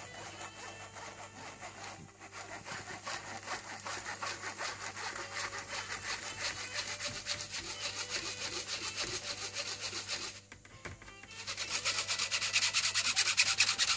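A metal wire whisk scraping back and forth over the mesh of a plastic sieve, working flour, cocoa powder and baking powder through it in quick rhythmic strokes. There is a short pause about ten and a half seconds in, and the strokes come louder near the end as the mesh empties.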